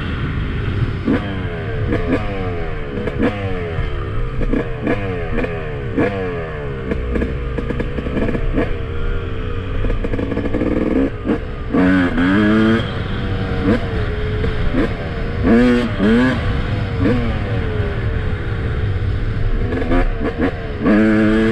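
Freshly rebuilt 2007 Yamaha YZ250 single-cylinder two-stroke engine revving, its pitch rising and falling over and over. There are sharper, louder revs about halfway through and again near the end.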